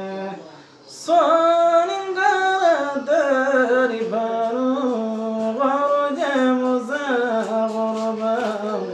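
A man singing solo and unaccompanied, in long held notes that slide and bend ornamentally. He breaks off for breath just after the start and comes back in strongly about a second in.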